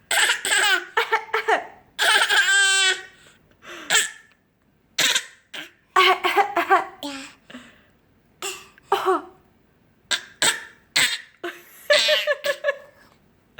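A young child's fake coughs on request, short forced bursts, mixed with laughter and giggling.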